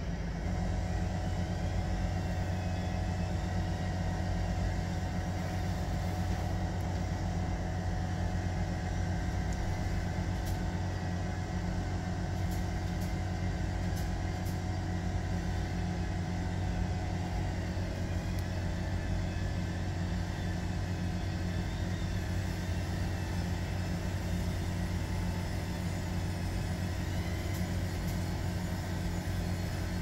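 Steady low mechanical rumble with a few faint clicks.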